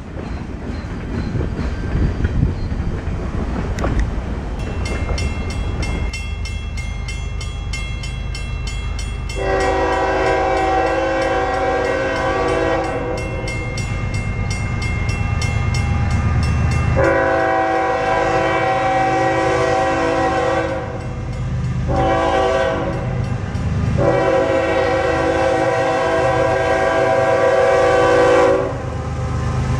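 CSX diesel locomotive horn sounding the grade-crossing signal, long, long, short, long, as the train approaches a road crossing. A crossing warning bell rings rapidly from a few seconds in, and the locomotive's engine rumble runs underneath.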